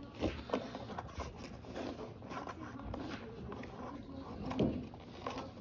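Cardboard toy packaging being handled: irregular scraping and rustling with small knocks, and a louder knock about four and a half seconds in.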